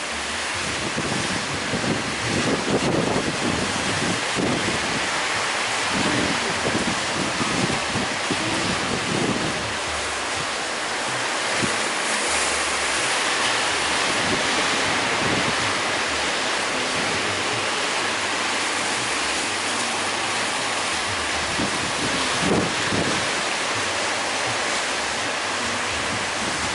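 Sea surf and breaking waves as a steady wash, with wind buffeting the microphone in low rumbling gusts, heaviest in the first third and again near the end.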